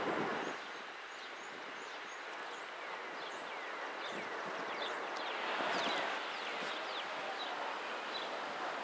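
The rushing noise of a receding commuter train drops away about half a second in, leaving steady outdoor background noise with many short bird chirps and twitters.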